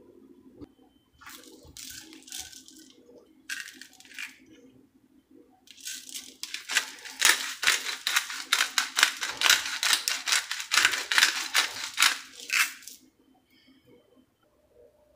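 Seasoning shaker shaken hard and fast, the granules rattling inside: two short bursts of shaking, then a long run of quick, rhythmic shakes from about six seconds in until near the end.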